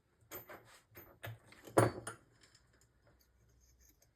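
A quick run of sharp metal clicks and knocks from tools and parts being handled on a dirt bike's engine case, the loudest knock about two seconds in. It fades to a faint low hum near the end.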